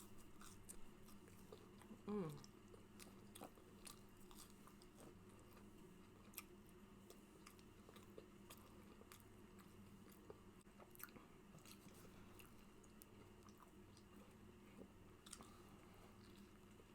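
Faint close-up chewing and lip smacking of someone eating fast food, a scatter of small wet clicks and crunches. About two seconds in comes a short vocal sound that drops in pitch, over a faint steady hum.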